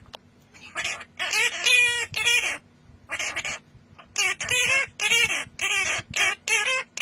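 A bird calling in a quick series of about a dozen short, pitched calls.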